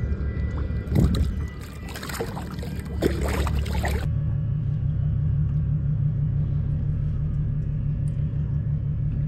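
Water splashing and sloshing at the surface as a released jewfish kicks away, over a low steady drone. This cuts off suddenly about four seconds in, leaving only a steady low drone.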